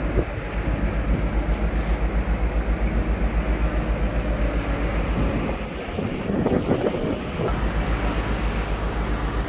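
Ship's diesel machinery running steadily: a low, evenly throbbing drone. About six seconds in it briefly drops back under a short rustling noise.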